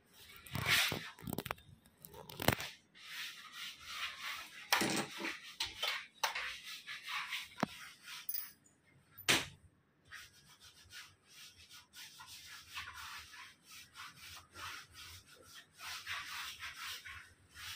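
Wallpaper being smoothed onto a wall by hand: repeated papery rubbing and swishing strokes, with a few louder knocks or slaps in the first ten seconds.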